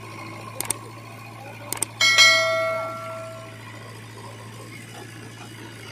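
A single loud metallic clang about two seconds in that rings on like a bell and fades over a second or so, from the JCB 3DX backhoe loader at work, with a few light clicks before it. Under it the backhoe's diesel engine runs steadily.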